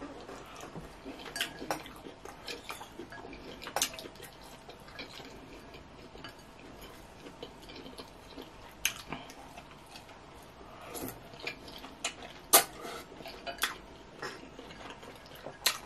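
Plastic fork and wooden spoon clicking and scraping against a glass bowl of ramen, mixed with close wet eating sounds. The clicks come irregularly, and one sharp clink late on is the loudest.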